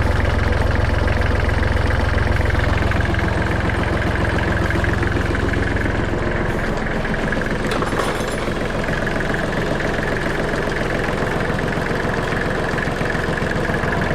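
Kubota GL19 tractor's diesel engine running steadily at idle, with its newly replaced water pump. The deep low end eases a little about five seconds in.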